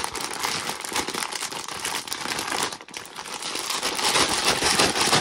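Clear plastic grain-spawn bag of colonized rye being squeezed and shaken by hand: the bag crinkles and the grains rustle as mycelium-bound clumps are broken apart. There is a brief lull about three seconds in, then the shaking picks up again, louder.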